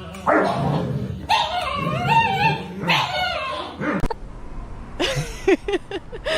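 A dog vocalizing: wavering, drawn-out whines, then a run of short yips near the end.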